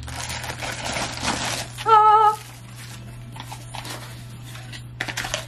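Plastic mailer bag crinkling and tearing as it is pulled open, then a short wavering vocal "ah!" about two seconds in, the loudest sound, followed by lighter rustling of a small cardboard box, with a brief scrape near the end.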